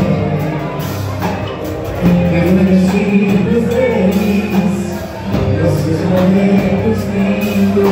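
Live band playing through a PA: electric guitars, bass, keyboard and drum kit, with a male singer at the microphone.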